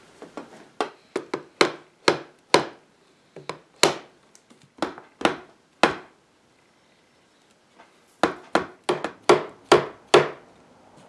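Small hammer tapping the leg and stretcher joints of a wooden chair: a series of sharp knocks in quick bunches, with a pause of about two seconds in the middle. He is testing whether the loose joints will knock apart.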